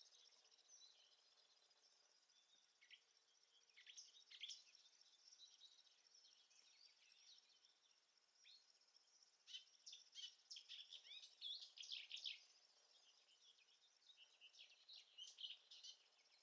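Faint songbird chirps and trills, coming in clusters about four seconds in, again from about ten to twelve seconds, and around fifteen seconds, over a thin steady high-pitched drone of insects.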